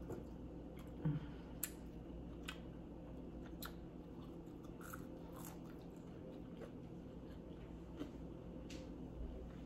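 A person chewing fried green plantain fries, faint, with scattered small crunchy clicks.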